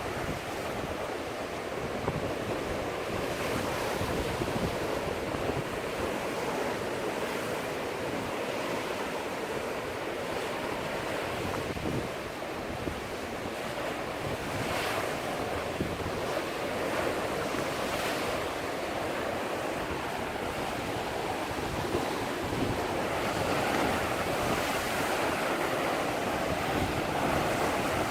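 Sea waves breaking and washing over shoreline rocks in strong wind, a continuous surf rush with brief splashes now and then, and wind buffeting the microphone.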